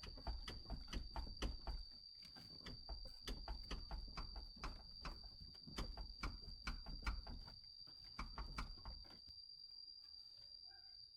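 Irregular clicking and knocking, several strokes a second, from tools and parts being handled during repair work; it stops about nine seconds in. A steady high-pitched whine runs underneath.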